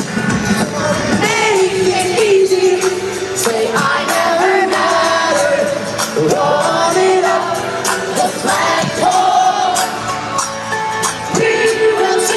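A live rock band performing, with a male lead singer on acoustic guitar and a steady beat, heard from within an arena crowd whose voices mix in with the singing.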